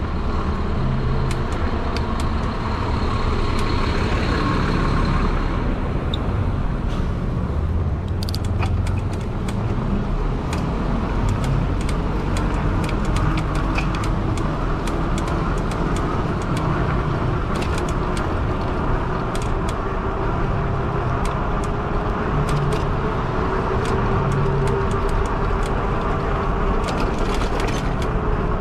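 Riding a modded fat-tire e-bike: a steady low rumble of wind and road noise on the microphone, with a faint whine rising slowly in pitch through the second half and scattered light ticks.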